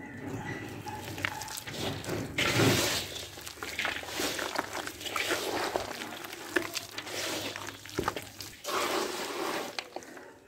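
Wet mud mixed with straw being kneaded and squeezed by hand in a metal basin: wet squelching and sloppy squishing that comes in uneven bursts, loudest a couple of seconds in and again near the end.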